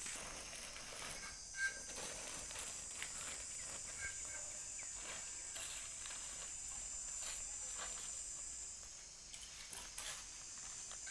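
Steady high-pitched insect drone with faint scuffs and steps in loose sand; the drone fades about nine seconds in.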